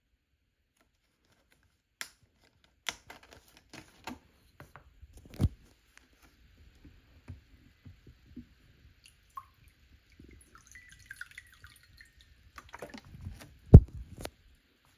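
Water poured from a paper carton into a glass, a light cheerful trickle, with handling clicks and knocks from the carton. The loudest knock comes about a second before the end.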